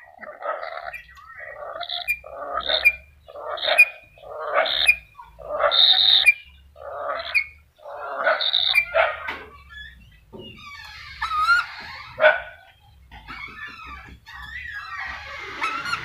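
Black-capped lory calling: a run of harsh, loud calls about one a second, then softer chattering with wavering whistles from about ten seconds in.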